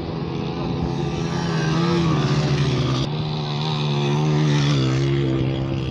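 Motorcycle engines revving hard as the bikes ride up loose sand, the engine note rising and falling. Loudest about two seconds in and again near four and a half seconds as a bike comes close.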